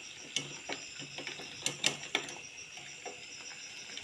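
Irregular light metallic clicks and taps from a steel bowl of melting soap-base cubes, handled and stirred as it sits in a pot of water over a gas burner in a double boiler.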